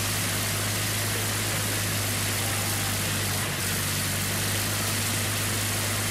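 Steady engine noise: a constant low hum under a broad, even hiss that does not change.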